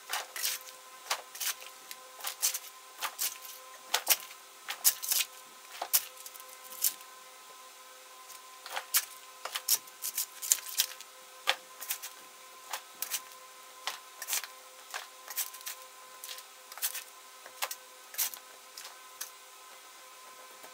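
Digging in rocky ground by hand: sharp, irregular scrapes and clinks of a shovel against stones and gravel, roughly one or two a second with short pauses, over a faint steady hum.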